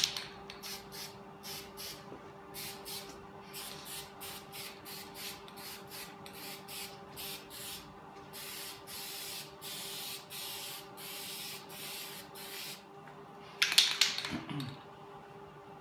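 Aerosol spray-paint can hissing in many short bursts, then in longer steady passes for the last few seconds of spraying, laying down a light coat of satin black. A brief louder noise comes near the end.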